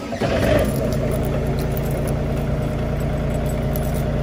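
2005 John Deere mini excavator's diesel engine, cold, just fired up and idling steadily. A slipping drive belt squeals along with it, as it does on this machine until the thermostat opens.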